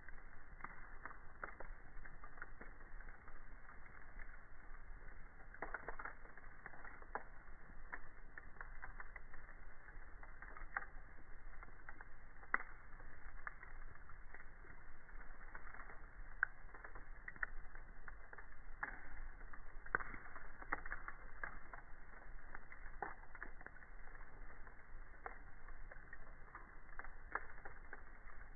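Wood campfire crackling, with irregular sharp pops over a faint steady hiss; a few louder pops stand out near the middle.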